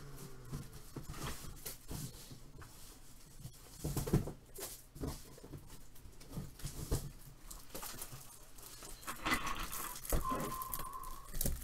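Irregular knocks, taps and rustling of plastic top loaders (rigid card holders) being grabbed and handled, with the loudest knock about four seconds in. A brief steady beep sounds near the end.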